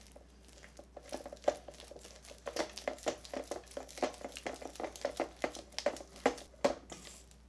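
Spatula stirring and working a stiff, sticky gum paste of egg white, powdered sweetener and cellulose gum in a stainless steel bowl: quick irregular strokes, scraping against the bowl, coming faster from a couple of seconds in.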